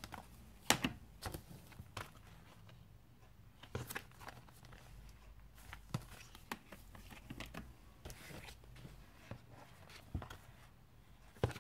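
Clear stamp sets in plastic sleeves and cases being handled and shuffled by hand: scattered light clicks and taps of plastic, with faint rustling between them. A few sharper clicks stand out about a second in, near the middle and just before the end.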